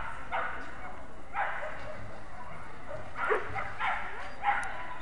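A dog barking about five times in short, sharp barks while running an agility jumpers course.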